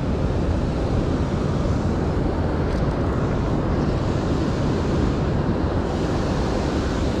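Steady rush of river water spilling over a low dam, with wind buffeting the microphone.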